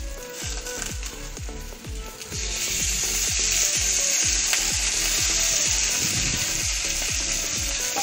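Sardines frying in a hot pan, a steady sizzle that suddenly grows much louder a couple of seconds in and stays loud.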